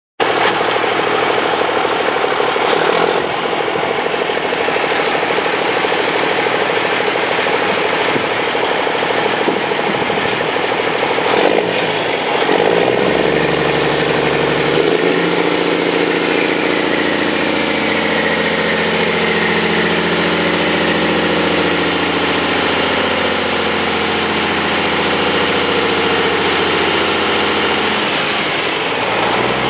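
The Cummins N14 inline-six diesel of a 2001 International 9400i dump truck running. About halfway through, the engine settles into a steadier, stronger drone while the hydraulic hoist raises the dump bed, with tones that slowly shift in pitch. The drone drops off near the end.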